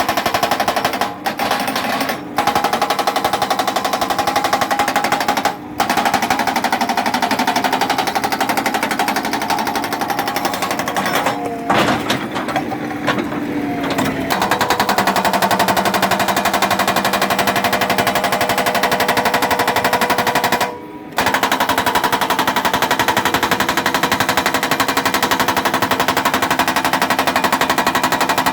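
Hydraulic breaker hammer on a JCB 3DX backhoe loader pounding rock in a rapid, steady stream of blows, with the backhoe's diesel engine running underneath. The hammering stops briefly several times, longest for about two seconds near the middle, where the engine note rises and falls.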